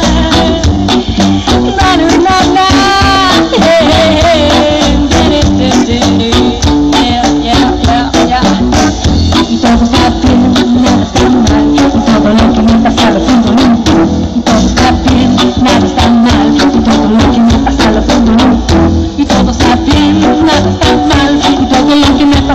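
Reggae band playing an instrumental passage: a steady bass line under dense, quick percussion strokes.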